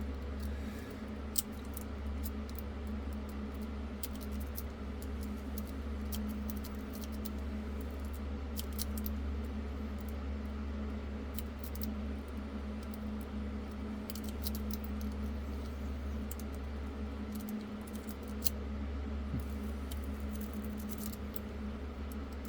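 A Sparrow worm rake raking the pin tumblers of a Master Lock padlock: scattered light metallic clicks and scrapes, over a steady low hum.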